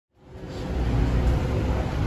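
City street traffic noise with a low rumble from passing vehicles, fading up from silence over the first second, then steady.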